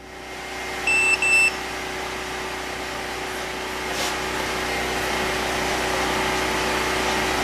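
Power inverter switching on: two short high beeps about a second in, then a steady hum with a rising whir as its cooling fan spins up.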